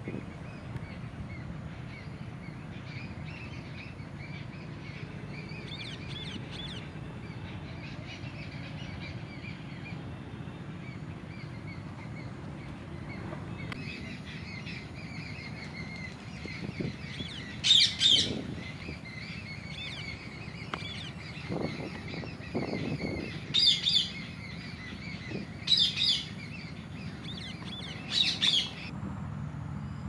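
Indian ringneck parakeet giving four loud, short, shrill calls in the second half, spaced a few seconds apart, over faint steady chirping of birds.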